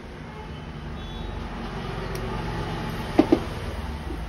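Two sharp clicks close together about three seconds in, from hand tools such as small pliers at a goldsmith's bench, over a steady low background rumble like distant road traffic.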